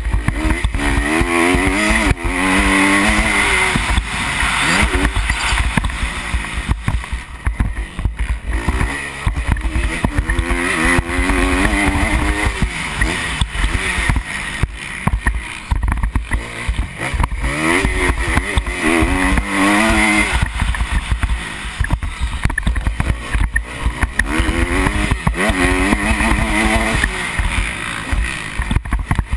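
Dirt bike engine revving under load, its pitch climbing and dropping several times as it accelerates and backs off, heard from the rider's helmet camera with heavy wind buffeting on the microphone.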